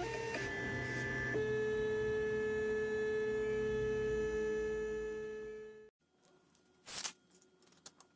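A steady electrical hum of pure tones that steps up in pitch twice in the first second and a half, then cuts off abruptly about six seconds in. A single sharp knock follows about a second later, with a few faint ticks.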